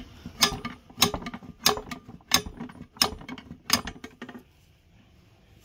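Two tire irons clanking against a mower wheel's metal rim as they are worked in a scissor motion to lever the tire bead off: about six sharp metal clanks, evenly spaced, stopping about four seconds in.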